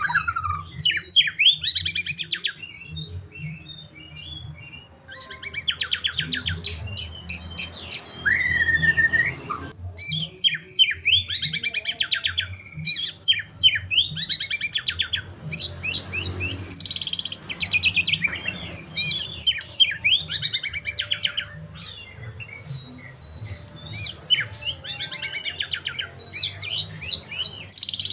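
Bird singing a fast, chattering lovebird-style song in long runs of twittering trills and chirps, broken by short pauses, the kind of recording played as song-training material for white-rumped shamas.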